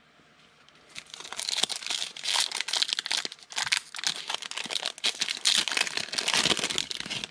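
Foil wrapper of a pack of football trading cards being torn open and crinkled by hand. It starts about a second in as a continuous run of rapid crackles and crinkles.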